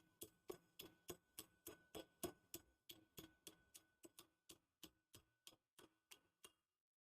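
Faint, quick light taps of a small hammer on a sewing machine's handwheel, knocking it loose from its shaft, about three to four taps a second with a slight metallic ring. The taps grow fainter and stop about six and a half seconds in.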